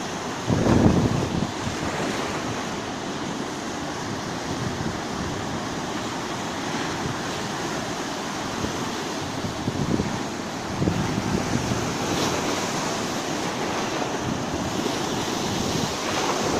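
Mediterranean sea surf washing steadily onto the shore, with wind buffeting the microphone in gusts, the strongest about half a second in and again around ten seconds in.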